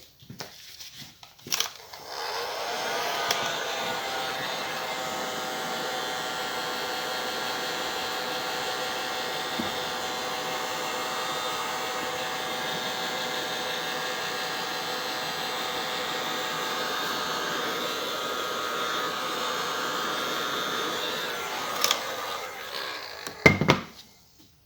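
A heat gun's fan motor is switched on, rising briefly in pitch as it spins up, then runs steadily for about twenty seconds before shutting off with a knock. It is heating the screen edge to soften the display adhesive.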